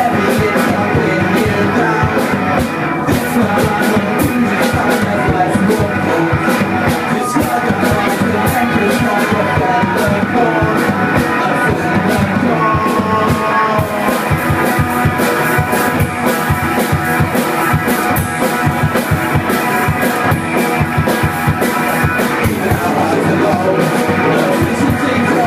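A live two-piece rock band, electric guitar and drum kit, playing a song loudly and without a break, the drums hitting steadily throughout.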